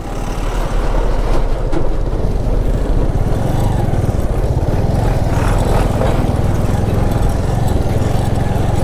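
Motorcycle running steadily while under way, a constant low engine hum under a rush of wind and road noise that builds over the first second and then holds steady.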